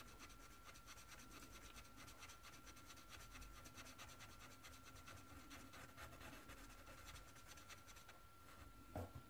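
Faint scratching of a Promarker alcohol marker's felt tip on paper in quick, short, repeated strokes, with a single soft knock near the end.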